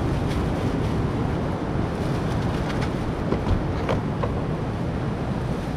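Steady wind rumble buffeting the microphone over the wash of surf, with a few light clicks in the middle.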